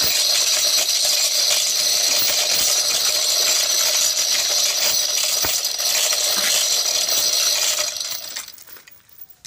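Chain block (chain hoist) being worked by hand: its steel hand chain rattles and clinks continuously through the block as it is pulled, taking up the weight of the submersible pump and pipe column. The rattling stops about 8 seconds in.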